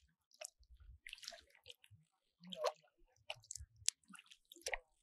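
Kayak paddle strokes: the blades dipping into calm water in a few uneven strokes, with drips and small splashes.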